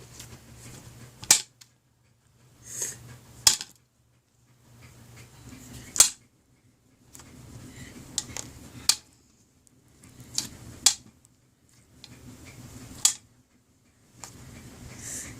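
Slime being squeezed and worked by hand, giving sharp pops and snaps every second or two, about eight in all.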